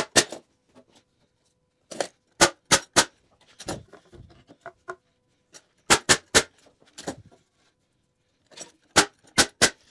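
Sharp wooden knocks in quick groups of two to four: 2x4 lumber being knocked and tapped into place against the frame and the concrete floor.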